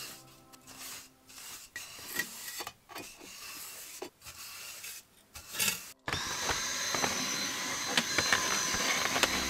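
Ash being scraped and swept off a wood-burning stove's hearth with a poker and a small hand brush, in short strokes with pauses. About six seconds in, a small electric motor switches on suddenly and runs steadily with a high whine.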